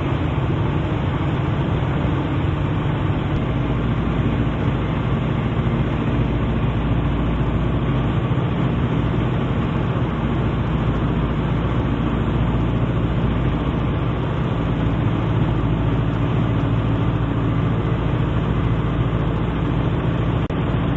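Piper Super Cub's piston engine and propeller running steadily in flight, an even drone with a low hum and no change in power.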